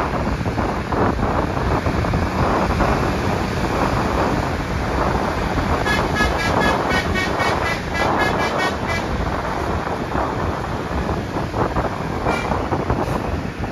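A bus's Basuri telolet horn playing a quick tune of short notes that change in pitch, about four notes a second, for roughly three seconds midway. Under it is steady engine, road and wind noise.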